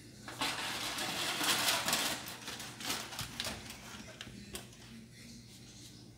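Aluminium foil crinkling as it is peeled back from a foil-covered roasting pan, loudest for the first two seconds, followed by a few scattered crackles and clicks.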